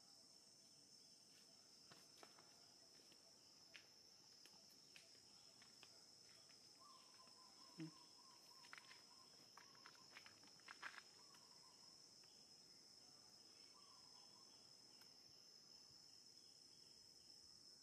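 Faint, steady high-pitched drone of insects, with a few soft clicks and taps scattered through the middle.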